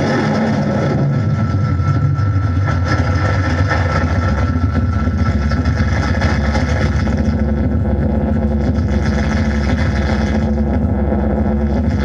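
Noise-music drone: a loud, dense, steady low rumble, with a faint high tone held over it for the first few seconds.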